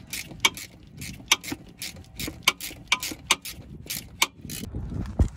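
Hand ratchet clicking, about three or four clicks a second in uneven strokes, as it tightens the bolts of a CV axle's inner joint at the differential flange. A dull thump comes near the end.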